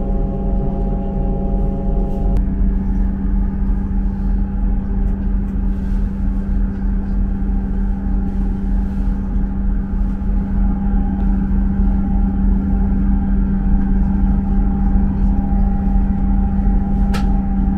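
Diesel train's underfloor engine running steadily, heard from inside the carriage as a low hum with several steady tones; some of the higher tones drop away about two seconds in. A brief high chirp sounds near the end.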